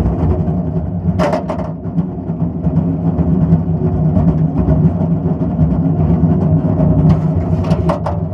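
Schwarzkopf Wildcat steel roller coaster train rolling along its track, a steady low rumble of the wheels on the steel rails, with a short clatter about a second in and a few more clacks near the end.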